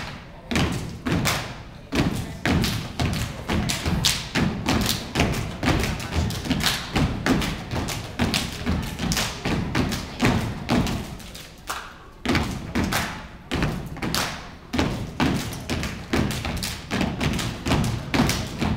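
Step team stomping and clapping in unison on a wooden stage floor: a fast, steady rhythm of foot stomps and hand claps, with a short break a little past the middle before the beat picks up again.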